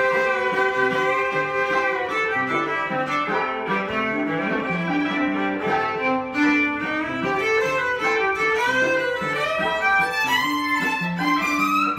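Electric violin bowed, jamming a tune in A minor, with several notes sounding at once and lower notes repeating under the melody.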